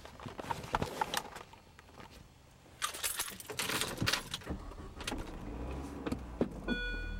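Keys jangling with clicks and rustling, then a low steady rumble from about four and a half seconds in. Near the end a short electronic beep starts repeating.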